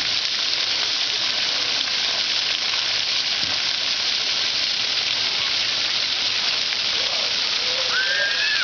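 Splash-pad fountain jets spraying and the water pattering onto the wet pavement: a steady hiss. A brief voice calls out near the end.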